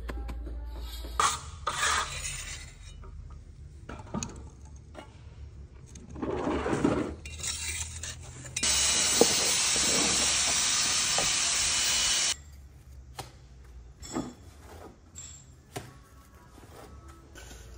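Hand tools rubbing, scraping and tapping on a fresh concrete wall, heard in short separate snatches. For about four seconds in the middle a loud steady hiss starts and stops suddenly.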